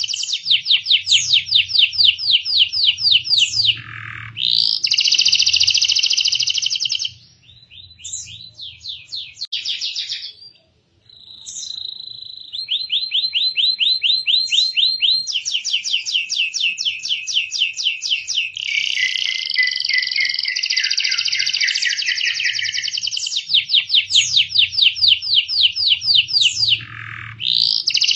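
Canary singing a long song of fast trills, the same short note repeated in rapid runs that switch between higher and lower tours. About a third of the way in the song thins to scattered notes and short trills for a few seconds, then picks up again.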